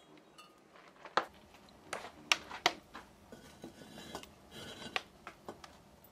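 Wood fire crackling in a kiln firebox: a dozen or so sharp, irregular pops and cracks over a low background, the loudest a little over one and two seconds in.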